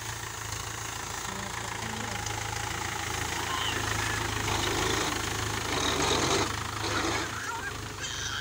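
Mahindra 475 DI tractor's four-cylinder diesel engine running steadily as the tractor climbs onto a heap of straw, its note getting a little louder midway.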